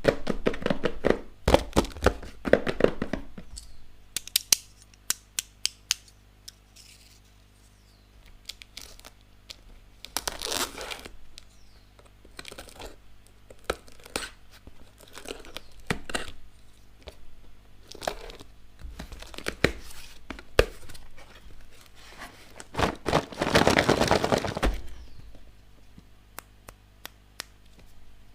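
Packaging of a toy animal set being torn open and crinkled by hand, with many sharp clicks and taps as the pieces are handled. The longest stretches of rustling come at the start, about ten seconds in and again a few seconds before the end.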